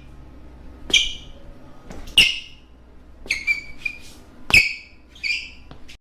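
A string of short, sharp ringing hits, about seven in all at uneven intervals, each a high ding that dies away within a fraction of a second.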